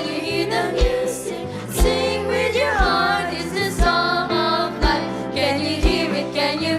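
Children's choir singing with instrumental accompaniment, a bass drum beating steadily about once a second under held bass notes.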